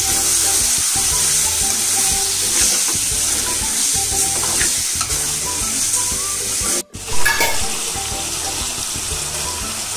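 Chicken pieces sizzling in hot oil in a metal kadai, stirred with a metal spoon that scrapes against the pan. The sizzle drops out for a moment about seven seconds in.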